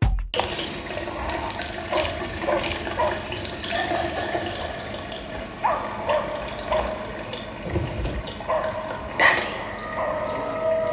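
Water running and gurgling, with short wavering bubbling tones and a few small drips, from a horror short film's soundtrack.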